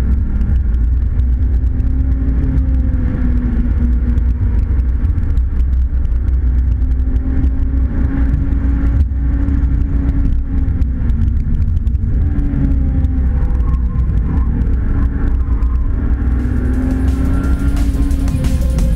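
Volvo S60 Polestar Concept's 3.0-litre turbocharged inline-six, heard from inside the cabin, under hard driving on a race track, with its engine note rising and falling repeatedly as it accelerates and lifts over a heavy low rumble.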